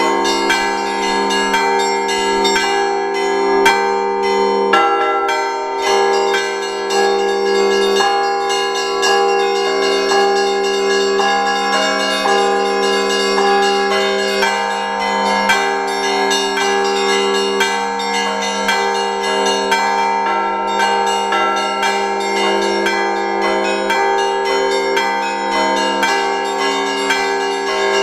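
Russian Orthodox church bells rung by two bell ringers in the Sunday peal after the Liturgy: many quick strokes of the small bells over the steady ringing of the larger, lower bells, without a pause.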